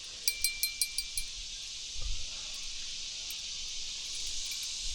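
Small fishing-rod bell jingling in a quick run of rings for about a second, as a fish tugs at the line, then going still. A steady high hiss carries on underneath.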